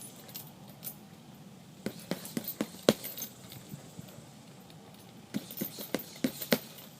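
Boxing gloves striking a heavy punching bag: two quick flurries of about five or six punches each, one about two seconds in and another near the end, running through a called combination.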